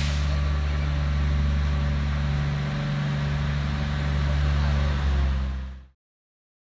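Matheran Hill Railway toy train's narrow-gauge diesel locomotive running as it approaches, a steady low engine hum with a short hiss right at the start. The sound cuts off suddenly near the end.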